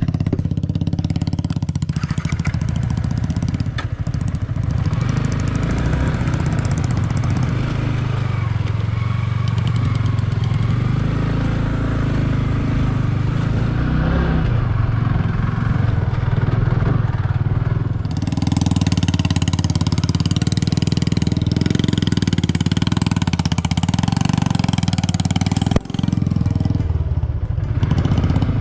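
Single-cylinder motorcycle engine running steadily under load on a rough off-road climb. A hiss joins in about two-thirds of the way through, and there is a brief drop near the end.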